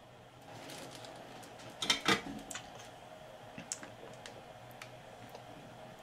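Soldering the pins of a replacement optical connector on a circuit board: light, irregular clicks and taps of the iron and solder wire on the joints, with two louder clicks about two seconds in.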